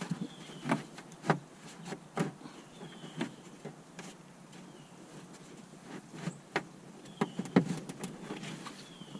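Irregular plastic clicks and knocks of push rivets being pressed into a kayak seat bottom, a dozen or so sharp taps with a couple of louder snaps.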